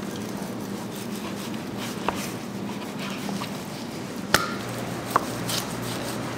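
Knife trimming pork spare ribs on a plastic cutting board: a few sharp knocks of the blade, the loudest about four seconds in with a short ring, over a steady background hum.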